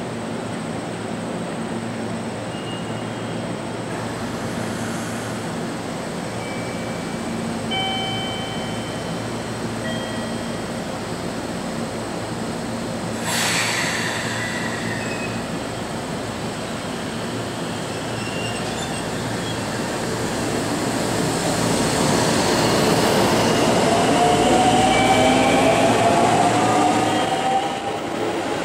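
JR Central 313-series and 211-series electric train sets rolling slowly into the platform, with a steady motor hum and a few short wheel or brake squeals. A brief burst of air hiss comes about halfway through, and near the end the sound grows louder with a slowly rising whine as the cars pass close by.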